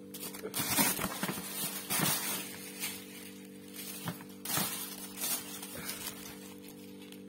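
Tissue paper in a cardboard shoe box rustling and crinkling as it is handled and pulled aside, in irregular bursts that die down about five and a half seconds in.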